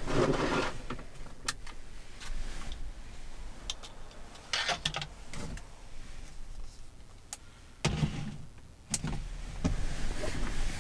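Rustling of a fleece blanket and bedding as a person settles into bed in a small camper cabin, with scattered small clicks and knocks from handling things nearby. A sharper knock comes about eight seconds in and another about nine seconds in.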